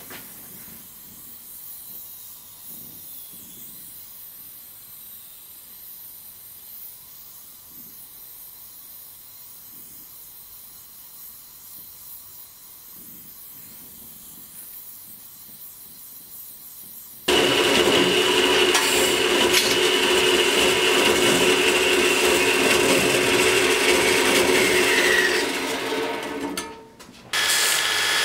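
A handheld gas torch hissing steadily as its flame heats a knife blade's tang. About two thirds of the way in, this gives way abruptly to a belt grinder running loud while a small part is ground on the belt. The grinder noise drops off briefly near the end and comes back.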